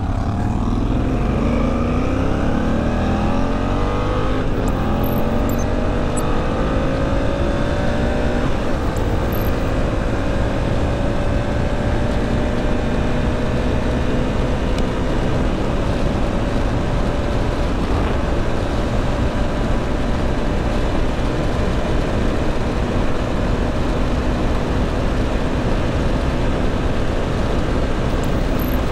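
Motorcycle engine at full throttle, its pitch climbing for the first eight seconds or so and then holding steady at top speed of about 200 km/h, under heavy wind rush.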